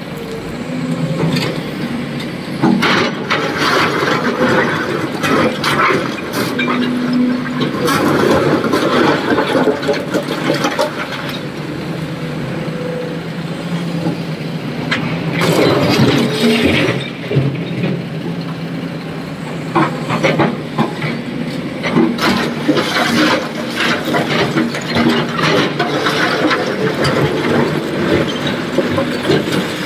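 Excavator loading stone into a tipper truck: the diesel engine runs steadily under many sharp knocks and stretches of clattering as rock strikes the steel truck body and the bucket.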